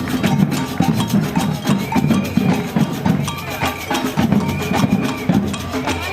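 Background music with a steady percussive beat and a short high note that comes back every second or so.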